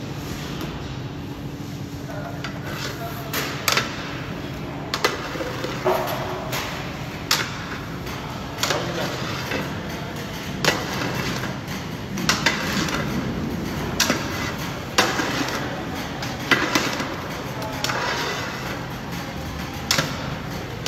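Long metal spatula stirring thick carrot halwa in a large steel pan, knocking and scraping against the pan's side about once a second, unevenly, over a steady low hum.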